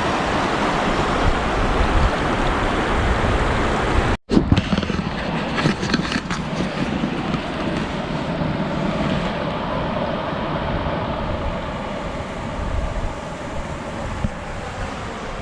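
Strong wind blowing across the microphone in a steady rushing noise, mixed with the rush of spring meltwater. The sound drops out for an instant about four seconds in.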